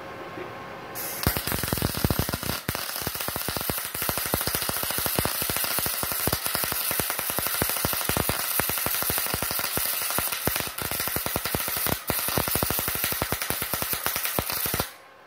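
MIG welding arc from a MultiPro 450 W inverter welder running solid wire under argon shielding gas at 85 amps, voltage turned up to 8.5: a dense, steady crackle of rapid pops that strikes about a second in and cuts off abruptly just before the end.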